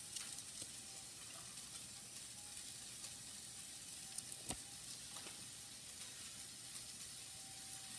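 Faint crinkles and light taps of a silver dollar being turned over in a soft plastic coin sleeve, over a steady background hiss.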